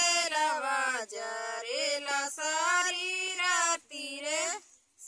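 Two women singing a Bhojpuri folk wedding song (vivah geet) together without instruments, in long drawn-out phrases, breaking off briefly for breath near the end.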